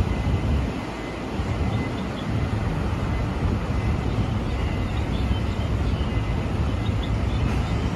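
Steady street traffic noise: a continuous low rumble of vehicles running on the road, with no single distinct event.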